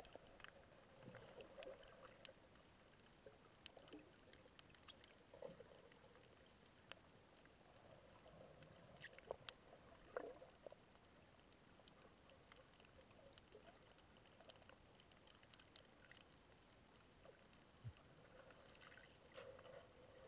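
Near silence underwater, heard through an action camera's waterproof housing: scattered faint clicks and crackles over a faint, wavering hum.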